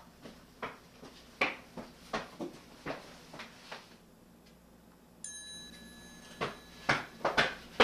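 Footsteps walking away and fading out, then coming back, quicker and growing louder, near the end. A brief steady high tone sounds in the quiet gap between them.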